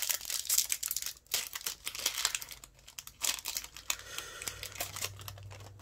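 Foil wrapper of a Yu-Gi-Oh! booster pack crinkling and crackling as hands tear it open, the crackles thinning out after about four seconds.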